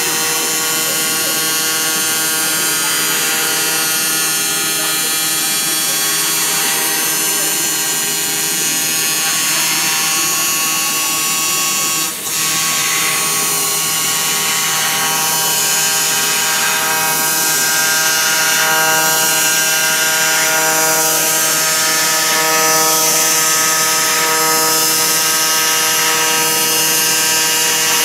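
YAG laser cutting machine cutting sheet metal: a steady mechanical whine in several tones over a hiss. The sound dips briefly about twelve seconds in.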